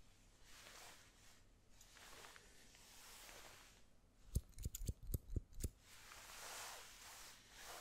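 Metal haircutting scissors snipping close to the microphone: about six quick, sharp snips in a second and a half, a little past the middle. Soft swishes come before and after them.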